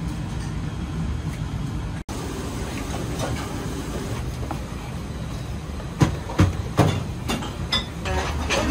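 Restaurant kitchen background: a steady low rumble of ventilation and refrigeration machinery, cut off for an instant about two seconds in. Near the end come a few sharp knocks and clatters of kitchen utensils.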